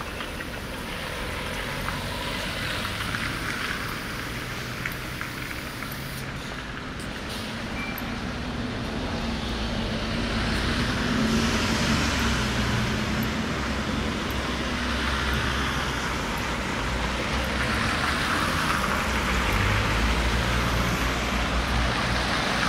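City street traffic: cars and heavier vehicles passing, an even rush of tyre and engine noise over a low rumble, swelling louder about halfway through and again near the end.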